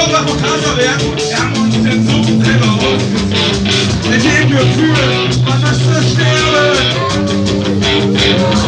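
A rock band playing live and loud, with electric guitars holding sustained chords over a steady low bass.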